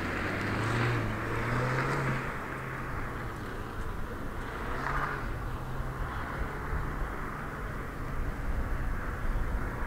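A Ford hatchback's engine working through an autocross course, its note rising and falling as the car accelerates and slows between the cones and fading as it moves away.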